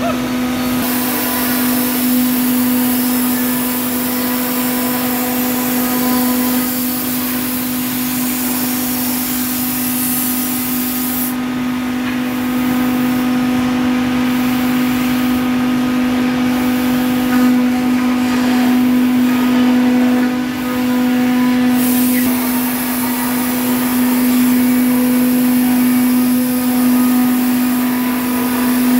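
Woodmaster CNC profile-cutting machine's router spindle running with a steady high whine as the bit cuts clamped wooden pieces, under a loud hiss from a compressed-air blow gun clearing sawdust. The hiss drops out for about ten seconds in the middle while the whine carries on.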